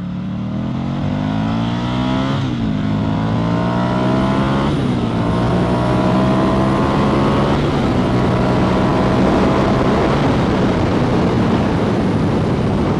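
Buell 1125R's 1125 cc V-twin accelerating hard at about half throttle, its pitch rising and then dropping at each of three quick upshifts. After the last shift the engine settles while wind rush grows with speed.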